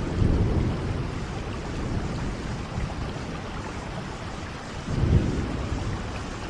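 Steady rain, with low rumbles of thunder swelling just after the start and again about five seconds in, the second the loudest.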